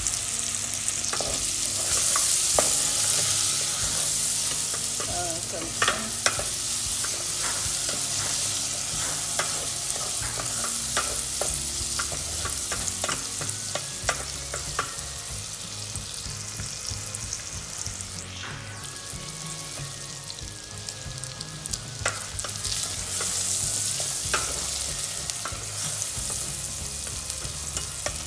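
Diced bacon and onion sizzling in oil in a stainless steel pan, stirred with a wooden spatula that scrapes and knocks against the pan now and then.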